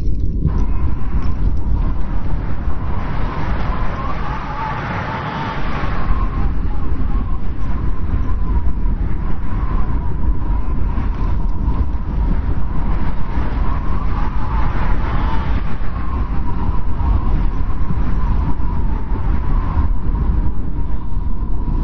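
Strong wind blowing in a snowstorm: a deep, steady rumble with a thin whistle. Two gusts swell and fade, one a few seconds in and another near the middle.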